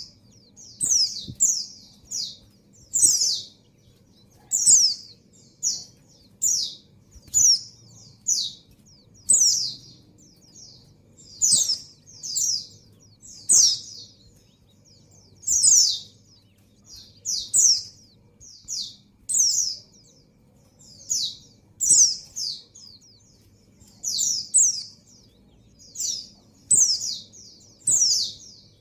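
White-eye (pleci) calling: short, high chirps that slide downward, often in twos or threes, repeated every second or two. The call of a female in breeding condition calling for a male.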